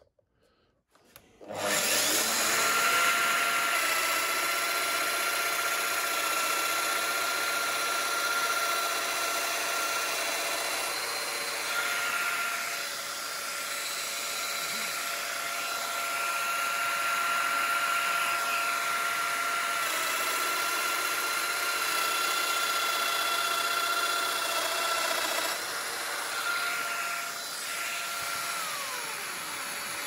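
Festool DF 700 Domino XL joiner starting up about a second and a half in and running steadily as it cuts a groove into plywood. Its pitch dips briefly a few times, and near the end it is switched off and winds down.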